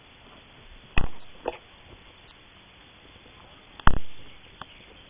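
Two sharp knocks, about a second in and a louder one just before four seconds, each fading within a fraction of a second, with a fainter click about half a second after each, over a quiet background.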